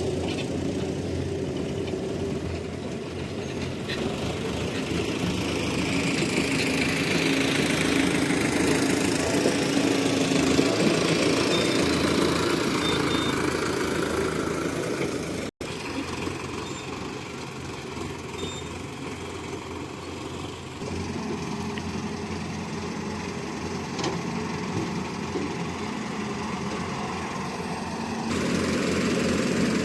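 Hyundai hydraulic excavator's diesel engine running steadily under load, with the hydraulic whine sweeping up and back down as the machine works. The sound drops out for an instant about halfway through.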